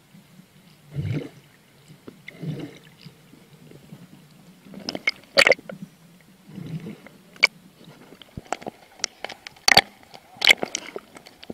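A scuba diver's exhaled regulator bubbles gurgling underwater in a few low bursts. In the second half, water splashes and sloshes against the camera as it breaks the surface, with sharp splashy clicks.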